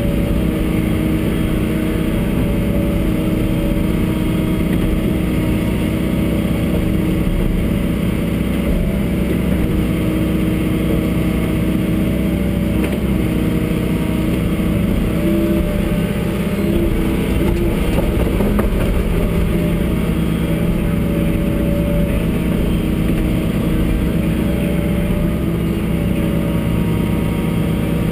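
John Deere 75D excavator's diesel engine running steadily while the hydraulics work the boom and bucket, heard from inside the cab.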